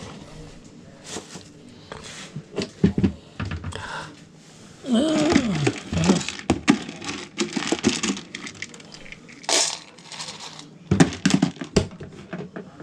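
Dry dog food pellets rattling and clinking in a stainless steel bowl as it is handled and tilted, in irregular bursts of small clicks. A short wavering, voice-like sound comes about five seconds in.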